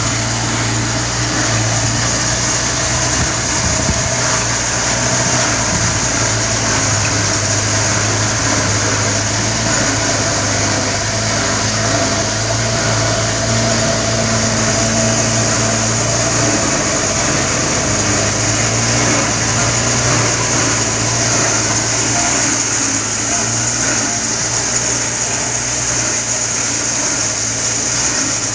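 An engine running steadily at an even speed, with a constant low hum and no revving.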